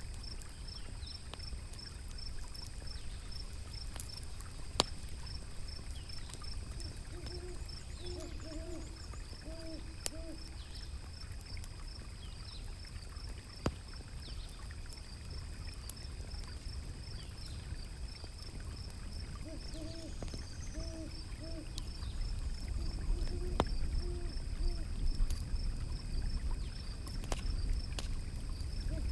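Owl hooting in short series of three or four notes, repeated several times over a steady low rumble of running river water. A few sharp fire crackles pop here and there.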